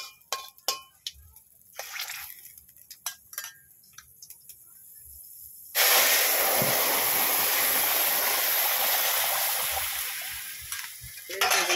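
A few light spatula scrapes in a karai of hot oil, then about halfway through a curry mixture is tipped into the hot oil and sets off a sudden loud sizzle. The sizzle is a steady hiss that slowly fades over the next few seconds as the liquid settles.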